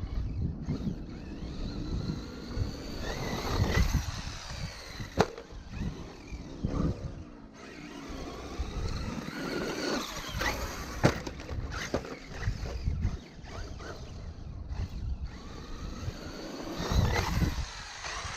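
Brushless RC monster truck (Traxxas E-Revo 2.0) driven hard through wet sand. The motor's whine rises and falls with the throttle over the rumble of the tyres, and a few sharp knocks come from landings and impacts.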